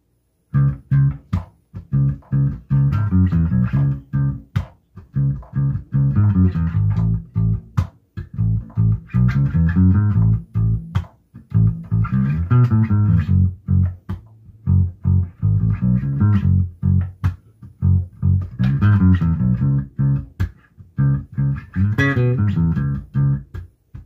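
Electric bass guitar played unaccompanied, a plucked groove line in short phrases with brief gaps between them and sharp muted string clicks among the notes.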